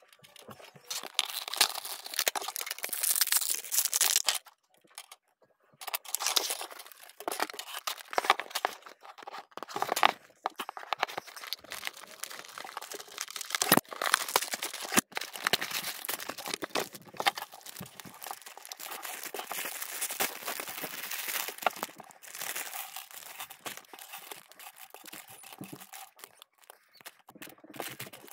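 Toy packaging being opened and handled: crinkling plastic wrapping and tearing of a cardboard toy box, in irregular bursts with a short pause about four and a half seconds in and two sharp clicks near the middle.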